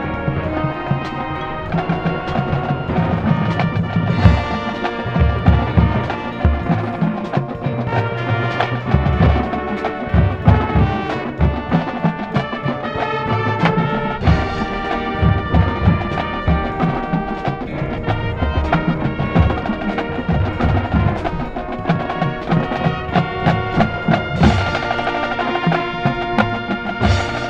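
High school marching band playing live: brass chords over percussion, with steady drum hits underneath.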